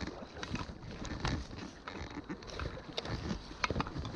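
Small irregular splashes and water lapping around a landing net holding a just-netted fish, with scattered light clicks and a low wind rumble on the microphone.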